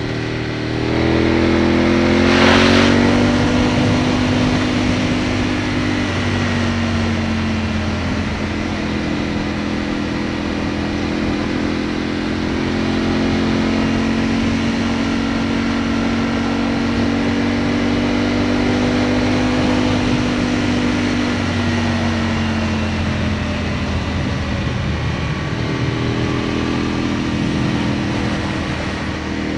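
Aprilia Tuono motorcycle engine heard from on board, pulling up through the revs over the first few seconds, then holding a steady cruise, easing off a little past twenty seconds in and picking up again near the end. Wind and road noise run underneath, with a brief loud rush of noise about two and a half seconds in.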